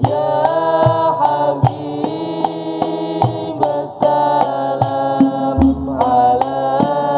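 Hadrah Al-Banjari ensemble: several young male voices sing sholawat together in long held phrases that step in pitch, over a regular beat of struck terbang frame drums. A deep drum tone comes in about five and a half seconds in.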